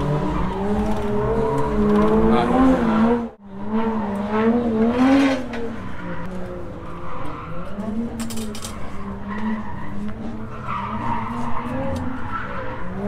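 A motor vehicle engine running, its pitch wavering up and down in light revs. The sound cuts off abruptly about three seconds in, then carries on a little quieter.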